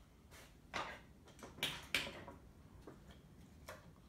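Small tools and hardware being handled and set down on a workbench: a series of short sharp clicks and knocks, the loudest three in the first half.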